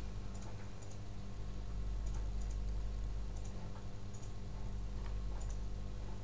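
Hard plastic parts of a SunSun HJ-1543 pond fountain pump housing clicking and tapping as they are handled and fitted back together by hand, with a few scattered clicks.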